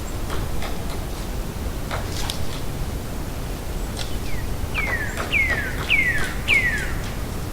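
Distant woodpecker: a few faint scattered taps, then a run of four falling calls about half a second apart, over a steady outdoor background hiss.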